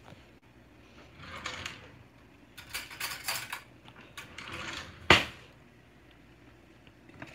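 Kitchen clatter of utensils and cookware: a few brief scrapes and a quick run of light clinks, then one sharp clack about five seconds in, the loudest sound.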